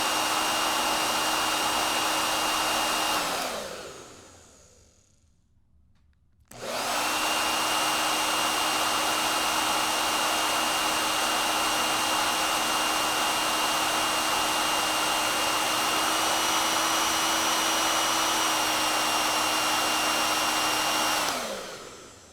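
Hair dryer blowing, a steady rush of air with a motor whine. About three seconds in it is switched off and winds down to near silence; it starts again abruptly about six seconds in. Its whine steps up slightly for a few seconds in the middle, then it is switched off and winds down near the end.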